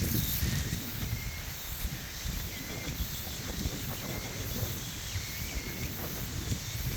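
Steady hiss of rain with dense low rumbling knocks, as of a hiker walking on a wet trail, and a faint short insect chirp a few times.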